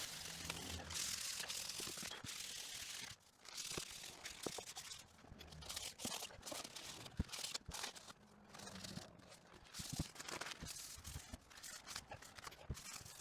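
A ball of crumpled brown paper rubbed over a wooden tray's cured finish to buff it. A steady rustling hiss for about the first three seconds gives way to irregular paper crinkles and small clicks.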